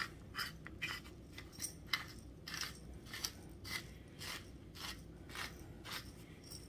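Hand-twisted pepper grinder cracking peppercorns in quick repeated turns, a crunching rasp about twice a second.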